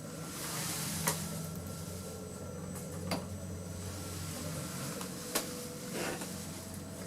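Passenger lift car travelling upward, its drive giving a steady low hum. Three sharp clicks come about two seconds apart, followed by a softer knock near the end.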